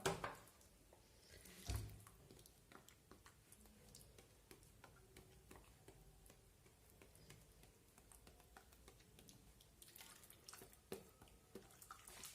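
Faint scattered taps and clicks of raw stuffed whole chickens being handled and set into a baking tray, with one dull knock about two seconds in.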